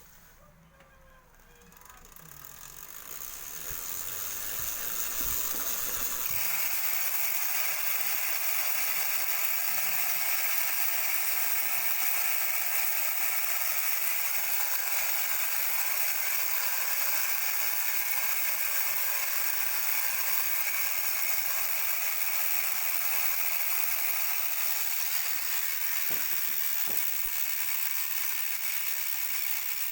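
Sagmit Secret V12 magnetic rear bicycle hub freewheeling: its six pawls click over the ratchet ring. The clicking grows louder over the first four seconds, then holds as a steady buzz.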